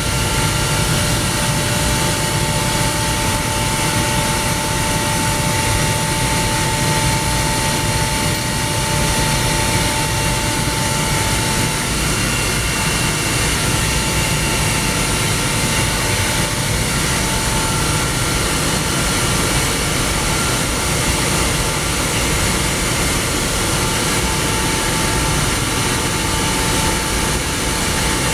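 Industrial screw air compressor running steadily: a dense, even machine rumble with a thin high whine on top that fades out partway through and comes back near the end.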